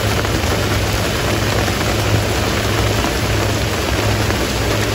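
Steady rain falling on the leaves of a calamansi tree, with a steady low hum underneath.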